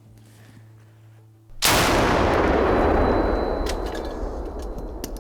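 An SPG-9 recoilless gun firing: a single sudden loud boom about one and a half seconds in, followed by a long rumbling tail that slowly fades.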